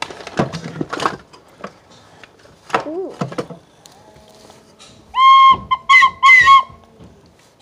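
Yellow plastic toy whistle blown three times about five seconds in: one longer blast, then two short ones, each at a steady pitch and the loudest sound here. Before it, rustling and handling knocks.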